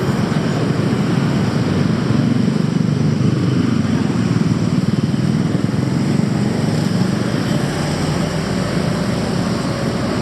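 City street traffic: a steady rumble of passing road vehicles.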